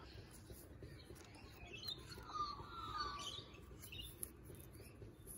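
Birds chirping faintly, with a few short warbling calls around the middle, over quiet outdoor background noise.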